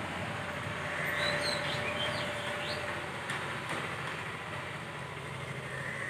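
Steady background noise, with a few short high chirps between about one and three seconds in.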